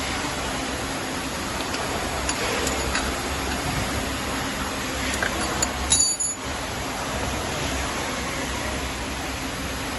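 Steady background hum and hiss with a few light metallic clicks, and one louder clink about six seconds in, typical of metal motor parts and tools being handled during disassembly.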